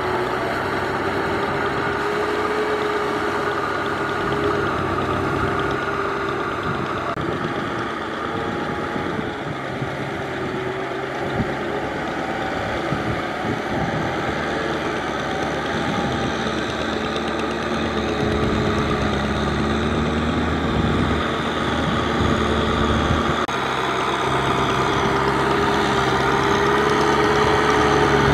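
Kubota M6040SU tractor's diesel engine running steadily under load while it pulls a rear rotary tiller through a muddy paddy field. The engine note drifts slightly in pitch, and grows heavier and a little louder about two-thirds of the way in and again near the end.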